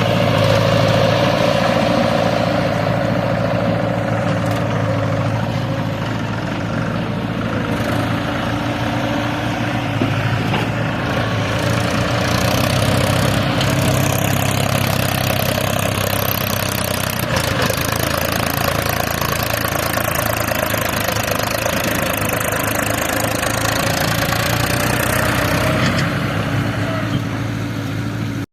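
Heavy diesel engine of an earth-moving machine running steadily, its note rising and falling slightly as it works.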